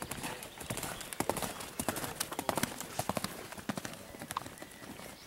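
Hoofbeats of a Holsteiner mare cantering on a sand arena: a quick, uneven run of knocks.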